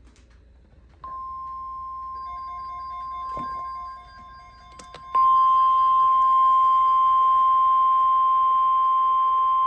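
NOAA Weather Radio 1050 Hz alert tone: one steady beep starting about a second in, then jumping much louder about five seconds in. It signals that an alert message is about to be broadcast.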